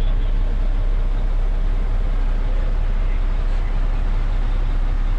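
Mercedes truck's diesel engine running steadily with a deep rumble, heard from inside the cab as the truck drives slowly across the site.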